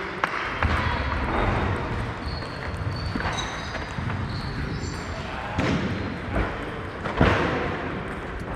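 Table tennis ball clicking off bats and table a few times, spaced out rather than in a fast rally, against the general din of a sports hall with other matches going on. Short high squeaks are heard in the middle.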